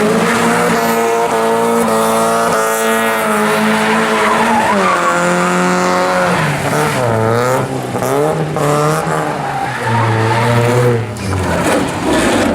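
Mazda Miata's four-cylinder engine held at high revs while its rear tyres squeal through a donut, then revs dropping and rising several times as the throttle is lifted and blipped, with a sharp drop near the end.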